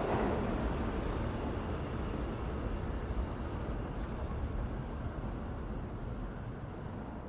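A low rumbling noise, as of a vehicle going by, that fades steadily away.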